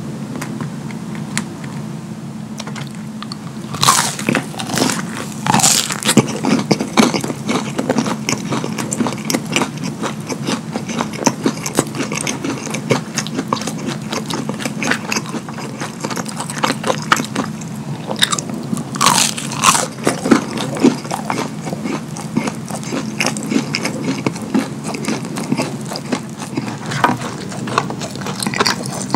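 Close-miked eating of McDonald's chicken nuggets and cheese-sauced fries: crunchy bites and continuous chewing and smacking mouth sounds. The loudest bites come about four seconds in and again around twenty seconds in.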